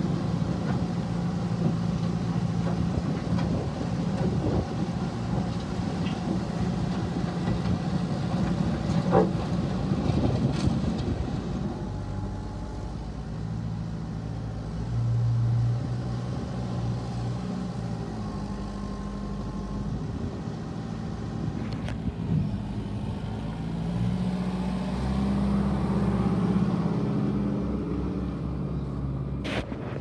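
Kubota M59 backhoe loader's diesel engine running, its revs rising and falling as the loader works, picking up about halfway through and again near the end. The first ten seconds or so are rougher and noisier.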